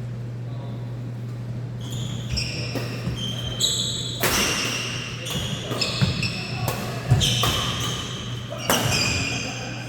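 Badminton rally: rackets striking the shuttlecock in several sharp hits, with shoes squeaking in short high chirps on the court floor, over a steady low hum in a large hall.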